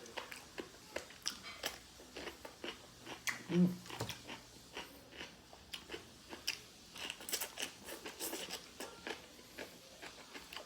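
Close-up chewing of braised pig ear: a steady run of small, crisp crunches of the cartilage, with a brief hum of the voice about three and a half seconds in.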